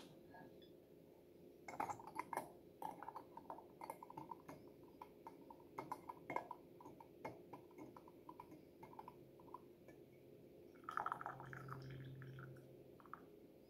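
Faint small clinks and ticks of a glass teapot's metal lid and infuser being handled, then a short trickle of tea dripping back into the pot as the mesh infuser basket is lifted out near the end.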